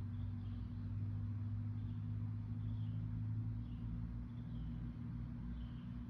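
A steady low hum, with faint short bird chirps repeating about once a second.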